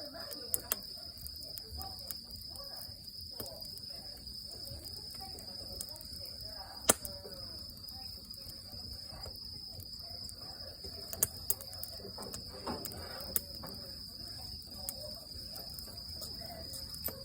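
Wood fire crackling, with scattered sharp pops, the loudest about seven seconds in, over a steady high-pitched trill.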